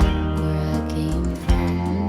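Background music with acoustic guitar, a steady bass line and a beat.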